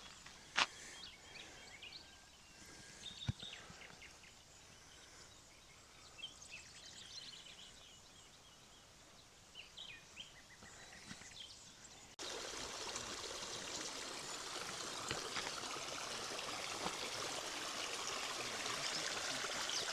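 Small hillside stream running into the lake: a steady rush of water that comes in suddenly about twelve seconds in and grows slightly louder. Before it, quiet open-air ambience with a few faint clicks and high chirps.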